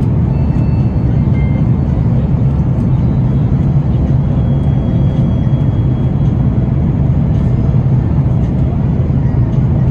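Steady low roar of cabin noise inside an Airbus A330-900neo airliner in flight, the rush of airflow and engines holding an even level throughout.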